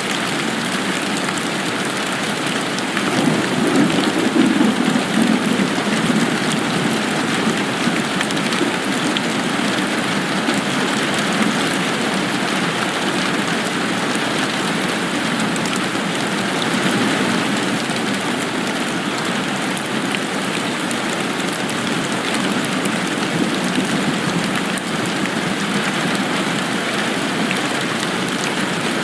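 Steady rain falling, an even hiss of drops on surfaces, with a brief low swell in the sound a few seconds in.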